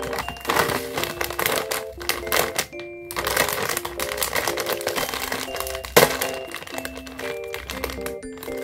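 Plastic snack bag crinkling and crackling as it is handled and pulled open, with one sharp snap about six seconds in. A light background melody plays throughout.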